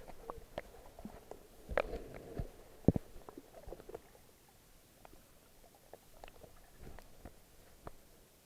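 Handling noise on a carried camera: scattered clicks, knocks and rubbing, the loudest about two and three seconds in, then fainter and sparser.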